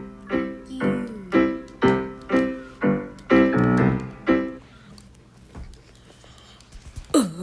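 A piano melody of about ten separate notes, roughly two a second, that stops about four and a half seconds in and leaves only a faint background.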